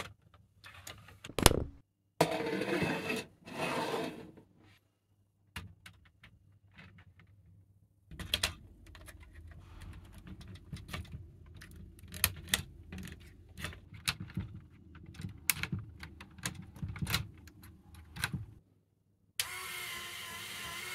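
Hands handling and fitting LEGO Technic plastic parts on a model crane: scattered clicks, snaps and rattling, with a stretch of quiet around the middle. Near the end an electric motor starts with a steady whir, driving the crane's boom upward.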